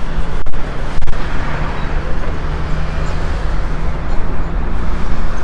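Road traffic: a vehicle engine running close by with a steady low hum over the rumble of passing cars.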